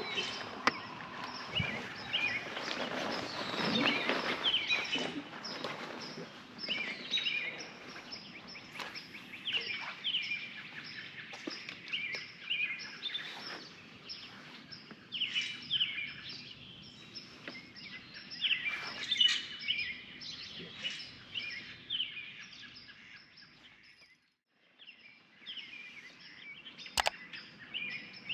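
Songbirds singing and chirping, in many short repeated calls, over a faint outdoor hum. The sound drops out briefly about three quarters of the way in, and a couple of sharp clicks come near the end.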